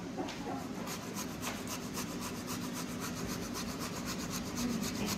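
Carrot being grated on a hand grater: quick, even rasping strokes, about five a second, as the shreds fall straight onto the salad.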